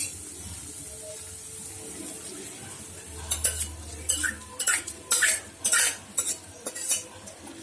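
Cooked white peas being stirred into sizzling onion-tomato masala in a pan: a steady sizzle, then from about three seconds in a ladle scraping against the pan in quick strokes, roughly two a second.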